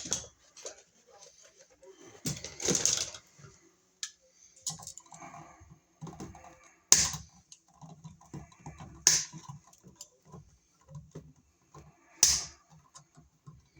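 Clicks and rattles of a wall receptacle and its wires being handled and pulled out of the electrical box, with three sharp clicks in the second half.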